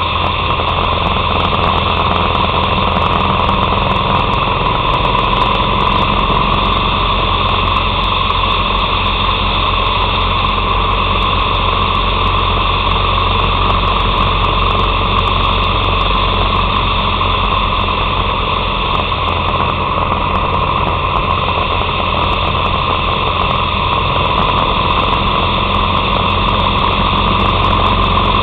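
Harley-Davidson Sportster 883's air-cooled V-twin engine running steadily at cruising speed, an even drone with no revving or gear changes.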